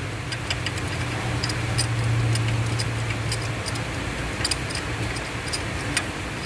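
Ratchet clicking in short, irregular runs as a spark plug is loosened and unscrewed, over a steady low hum.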